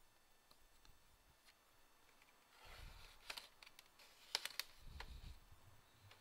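Laptop bottom cover being pried off by hand: quiet handling with a few sharp clicks about three seconds in and a louder cluster just after four seconds as its clips let go.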